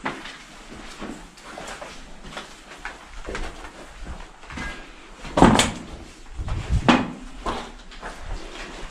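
Scattered knocks and thuds, with two heavy bangs about five and a half and seven seconds in.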